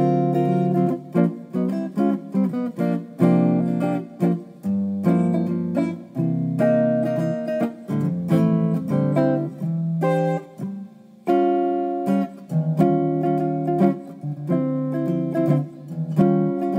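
Guitar music: chords strummed and picked in short phrases, with a brief break about eleven seconds in.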